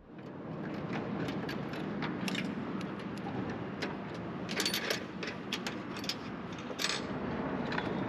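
Scattered light metallic clicks and clinks as an aluminium roller-furler foil and its rigging wire are handled on sawhorses, over a steady outdoor background noise.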